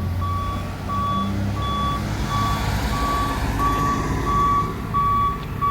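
Forklift's backup alarm beeping steadily, about one and a half beeps a second, over its engine running as it reverses.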